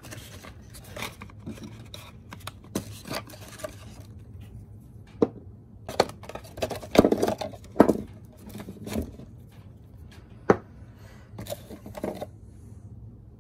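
Handling of a cardboard test-kit box and small capped bottles: scraping and rubbing of the box, with scattered sharp taps as the bottles and box are set down on a wooden workbench.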